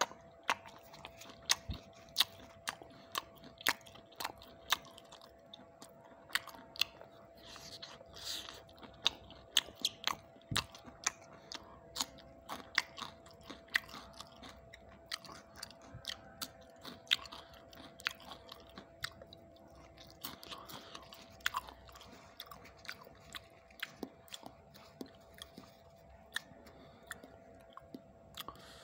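A person chewing a meal of rice and roti close to the microphone, with frequent sharp, wet mouth clicks and smacks at an irregular pace.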